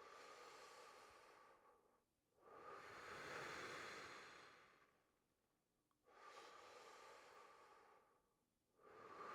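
Faint, slow, deep breathing, two full cycles of breathing in and out, each breath lasting about two to three seconds with short pauses between; the paced breaths of a qigong-style arm-raising exercise, breathing in as the arms rise and out as they press down.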